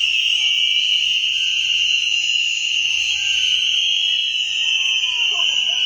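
A huge crowd of cheap plastic whistles blown all at once, starting suddenly together and held as one steady, shrill, piercing tone.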